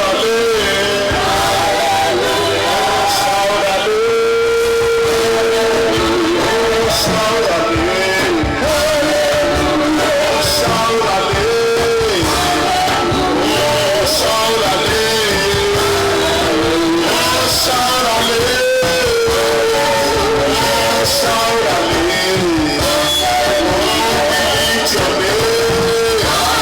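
Loud church praise music from a band, with a held sung melody running over it.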